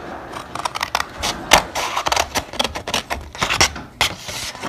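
Sheet of origami paper rustling and crackling as it is handled, an irregular run of crisp clicks, loudest about a second and a half in.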